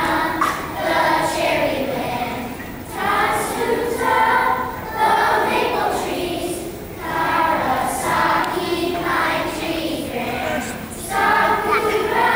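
Children's choir singing a song in short phrases, with brief breaks between them.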